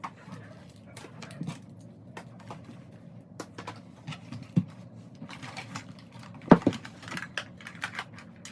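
Irregular light clicks, taps and knocks of small objects being handled and set down, with one louder knock about six and a half seconds in.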